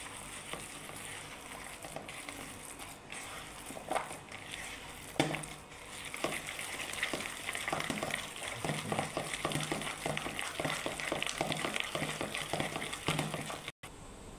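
A hand mixing thick urad dal batter with chopped onions in a plastic bowl: wet squelching and slapping, which gets faster and busier about halfway through.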